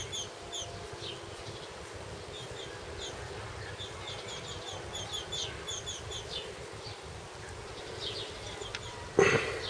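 Small songbirds chirping, with short high falling chirps repeated in quick runs. There is a brief louder noise near the end.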